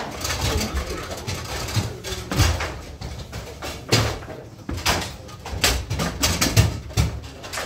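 Table football being played: an irregular run of sharp knocks and clacks as the ball is struck by the rod-mounted figures and hits the table, coming faster in the second half. More foosball games clatter in the background of the room.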